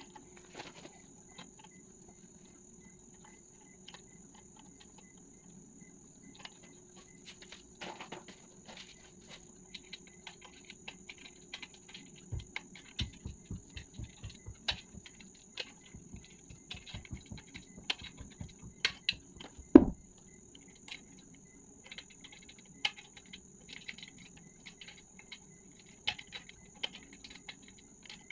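Handling sounds of a metal mirror stand being assembled by hand: scattered light clicks and taps as a black plastic knob is fitted and screwed through the frame. A run of quick low thumps builds up, ending in one sharp knock about two-thirds of the way through.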